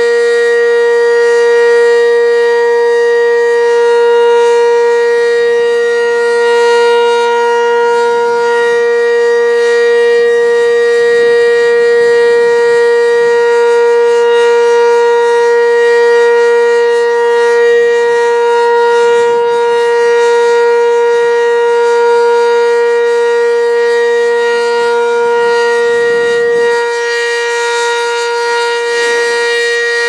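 Sentry 15V2T dual-tone outdoor warning siren sounding the steady Alert signal, holding one loud, unwavering pitch throughout.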